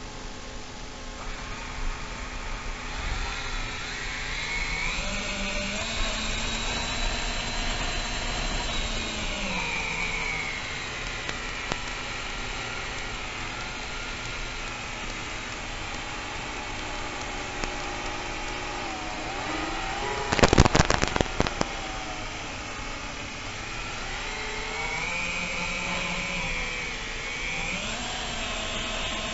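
FPV racing drone's electric motors whining, their pitch rising and falling with the throttle. About two-thirds of the way through, a brief loud burst of crackling knocks cuts in.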